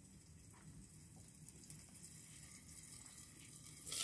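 Faint steady hiss and low hum in a quiet kitchen. Right at the end, loud sizzling of breaded chops frying in a pan cuts in suddenly.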